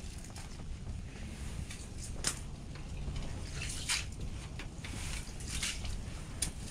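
Slotted ice skimmer scooping slush and water out of an ice-fishing hole: a few short wet scrapes and splashes over a steady low rumble.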